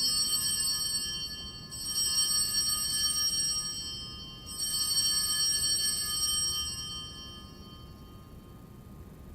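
Altar bells rung at the elevation of the consecrated host: a bright, high, multi-tone ringing, struck again twice about three seconds apart, each ring fading away.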